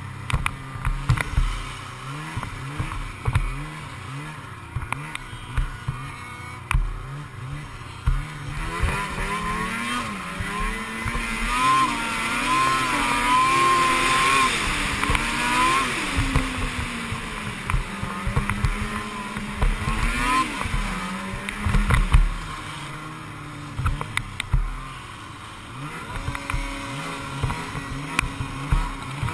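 Snowmobile engine running under throttle on the sled being ridden, its revs climbing about a third of the way in, wavering high for several seconds, then easing back and settling lower near the end. Short knocks run through it.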